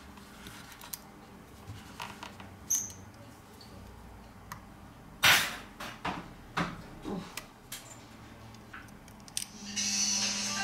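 Scattered small clicks and taps of a plastic spudger and gloved fingers on the phone's flex-cable connectors and metal shields, the loudest a sharp click about five seconds in. Background music comes in near the end.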